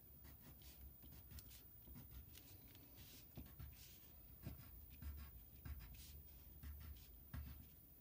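Faint scratching of a colored pencil on construction paper, a series of short, irregular strokes as small pointed texture marks are drawn.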